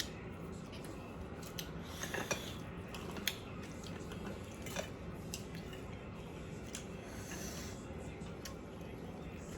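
Cutlery clicking against a plate a few times, single light clinks spread apart, over a steady low background hum.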